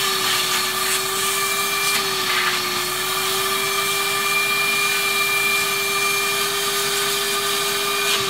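Vacuum motor of a Seed EZ vacuum seeder running steadily with a hum and a high whine, sucking potting soil off the seeder plate so its holes stay clear. Its pitch dips slightly about two seconds in and again near the end.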